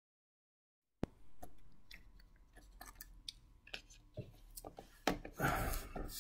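Dead silence for about a second, then small clicks and ticks of a celluloid fountain pen being handled over a paper notebook with its cap taken off. There is a louder rustle of hands on the paper near the end.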